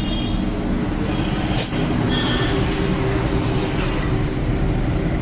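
Steady mechanical rumble with an even low hum, with a single sharp click about one and a half seconds in.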